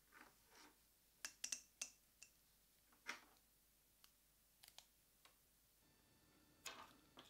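Faint, scattered clicks and taps of small plastic parts being handled: a Noctua fan and a perforated 3D-printed case lid being fitted together with rubber anti-vibration pins. There is a quick cluster of clicks about a second in.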